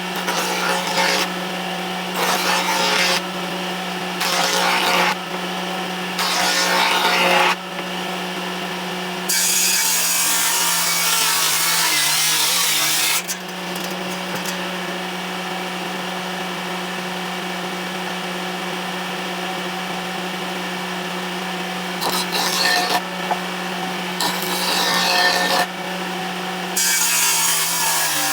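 Electric power tool motor running steadily while its cutter bites into wood again and again: short cuts about once a second at first, one longer cut of about four seconds, then more short cuts near the end.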